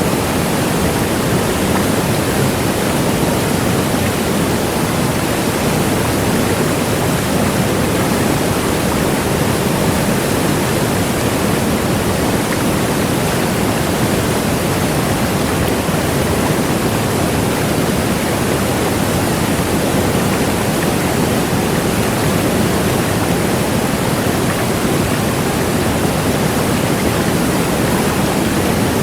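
Large waterfall: a steady, loud rush of falling water, even and unchanging, heaviest in the low and middle range.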